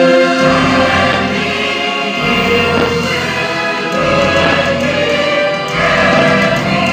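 Fireworks show soundtrack over loudspeakers: music with a choir singing held chords, and a deep low rumble that comes in about every two seconds.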